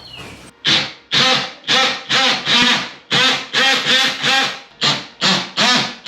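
A quick series of about eleven harsh, pitched animal calls, roughly two a second.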